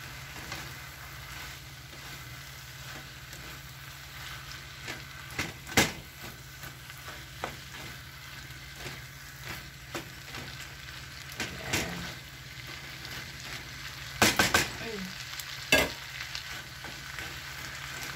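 Shredded cabbage, tomato and bacon sizzling in a non-stick frying pan while a plastic spatula stirs them, with a steady sizzle and a few sharp knocks of the spatula against the pan, the loudest of them late on.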